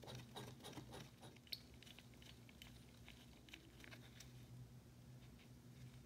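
Faint small clicks and scrapes of a hand plane's metal parts being handled as the knurled brass depth-adjustment nut is unscrewed from the frog, with one sharper click about a second and a half in. A faint low hum runs underneath.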